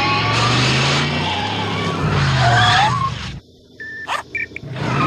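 DeLorean engine revving up and down with its tyres squealing as it spins in circles on wet pavement. About three and a half seconds in the sound drops away for about a second, with a few short tones and clicks, before the revving and squeal come back near the end.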